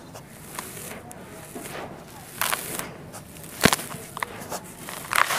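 Dry, gritty red dirt lifted by the handful, crumbled and poured back into a tub: a hiss of falling grains with sharp crunchy clicks of lumps breaking and landing. The sharpest click comes a little past halfway.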